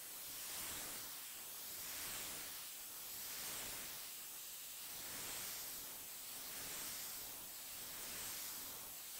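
CNC router spindle spinning at high speed and cutting a panel, heard faintly as a steady hiss. The hiss swells and eases about every second and a half as the bit moves along its path.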